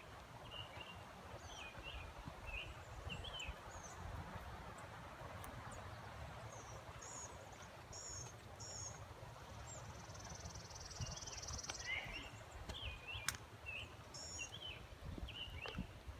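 Birds chirping outdoors: many short, quick high calls repeating throughout, with a brief high buzz about two-thirds of the way in, over a faint low rumble.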